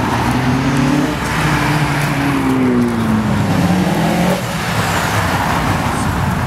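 Car engines accelerating past one after another: a Nissan 300ZX's V6, then a Subaru Impreza's flat-four. The engine note rises over the first seconds, then falls.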